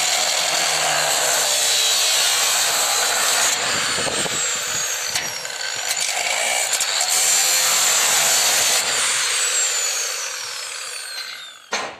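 Angle grinder with a cut-off disc cutting into the rusty steel floor plate of a manure spreader, a loud steady grinding hiss that tails off near the end. A single sharp knock follows just before the end.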